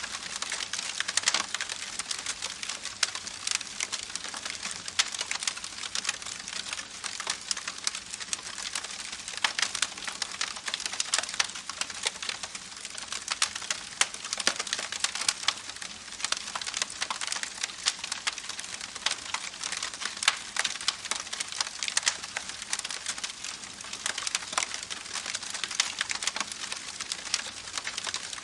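Wood campfire crackling with dense, irregular pops and snaps over the steady rush of a babbling creek.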